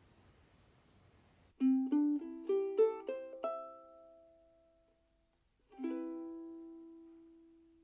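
KOU SBSK-LN soprano longneck ukulele with a solid Hawaiian koa body being played: a quick rising run of plucked notes about a second and a half in, then a single chord near the end, left to ring out and fade slowly.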